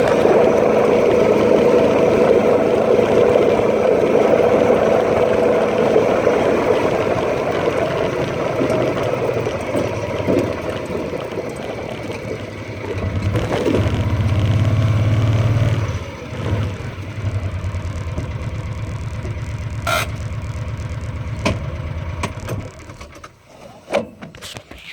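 A vehicle engine running steadily and briefly growing louder partway through, then shut off near the end, followed by a few sharp clicks.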